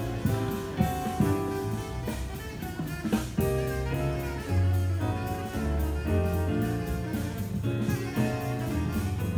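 Live jazz quartet playing: tenor saxophone over piano, bass and drum kit, with the cymbals keeping a steady beat.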